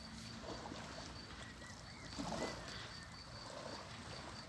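Lake waves slapping against the shore, driven by a strong wind that also rumbles on the microphone.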